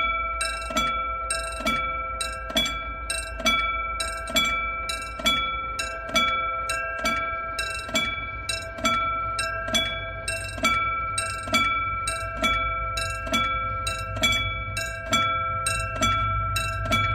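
Railway level crossing warning bell ringing steadily, a bright struck-bell tone repeating a little more than once a second. Near the end, the low rumble of an approaching diesel locomotive grows beneath it.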